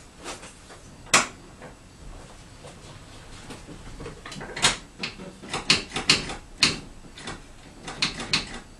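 Sharp clicks and knocks of a car being handled, with one loud knock about a second in and a quick run of clacks and knocks from about four and a half seconds on.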